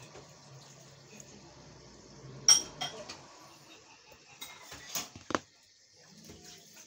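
Metal parts being handled and knocked together: a sharp metallic clink about two and a half seconds in, the loudest, then a few smaller clinks and knocks in quick succession a couple of seconds later.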